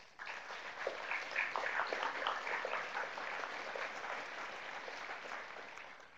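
Audience applauding, many hands clapping at once; the applause is strongest in the first couple of seconds and slowly tapers off.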